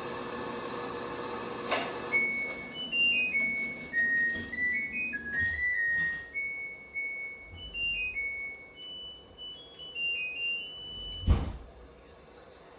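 LG top-load washer playing its end-of-cycle melody, a short tune of single beeping notes that replaces a buzzer and signals that the wash is finished. A steady machine hum cuts off with a thud about two seconds in, before the tune starts, and a low thump comes near the end.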